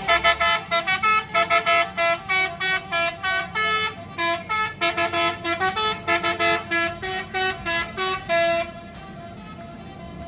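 Telolet horn, a multi-note musical vehicle horn, playing a rapid tune of short notes at changing pitches, about two to three a second, without a break. It cuts off near the end, leaving the low steady noise of the vehicle and road.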